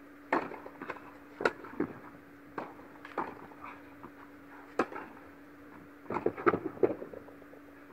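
Tennis ball struck by rackets and bouncing on an indoor court during a rally: sharp pops about every second and a half, with bounces between them, and a quick cluster of knocks and footfalls near the end as the point finishes. A steady hum runs under it.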